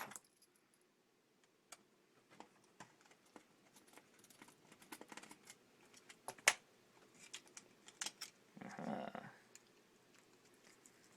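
Scattered small plastic clicks and taps from handling laptop parts while plugging ribbon connectors into the bottom plate, with a louder click at the start and another about six and a half seconds in, and a brief rustle about nine seconds in.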